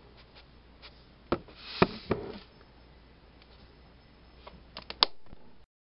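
A few light clicks and knocks with a short rustle as a spoonful of fine salt is tipped into a glass bowl of mashed strawberries, then a few ticks and one sharp click before the sound cuts out.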